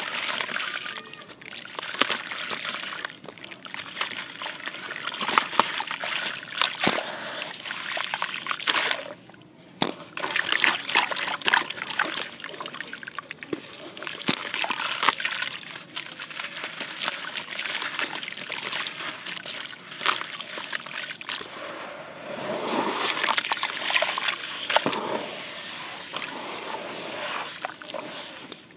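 Gritty sandy clay blocks crumbled by hand into a basin of water: crumbly crackling and repeated splashing and sloshing as the pieces drop in. There is a short pause about nine seconds in, and near the end the hands swish through the muddy water.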